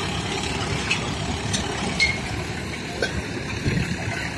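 A steady low engine rumble of site machinery, with a few short sharp metallic clinks of steel reinforcement bars being handled.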